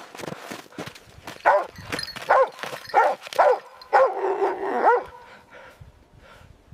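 A dog barking, about six short barks in quick succession, the last one drawn out a little longer.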